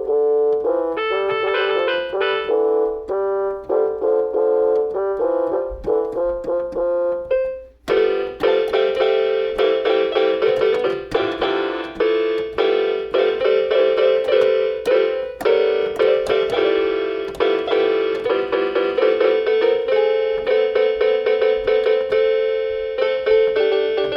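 Keyboard playing a piano-voiced tune. It pauses briefly a little before eight seconds in, then comes back fuller, with quick, busy notes.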